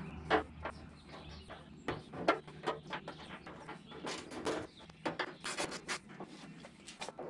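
Scattered small clicks and metallic taps from hand tools working on the fittings of a classic Mini's boot lid, coming irregularly a few times a second over a faint low hum.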